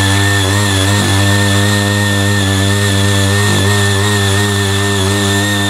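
CY80 mini power tiller's small engine running steadily under load while its rotary tines till the soil.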